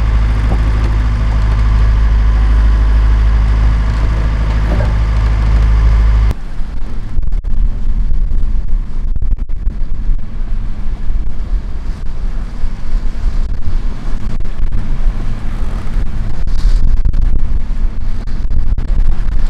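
A steady low drone from the sailing yacht's inboard engine, heard below deck, stops abruptly about six seconds in. Then gusty wind buffets the microphone over the rush of waves past the hull.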